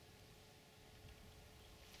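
Near silence: faint background hiss with a steady faint hum.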